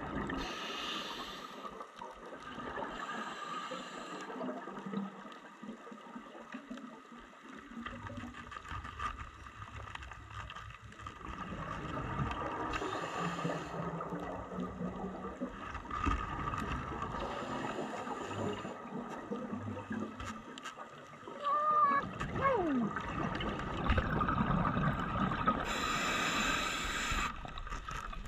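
Underwater sound of a scuba diver breathing through a regulator, with hissing bursts of exhaled bubbles every few seconds over a muffled, steady background.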